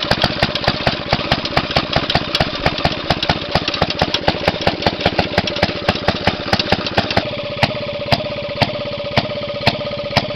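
Maytag two-stroke engine running fast on a walk-behind McLean garden tractor, a quick, even train of exhaust pops. About seven seconds in, the rushing background noise drops away and the pops stand out sharper, with a ringing note.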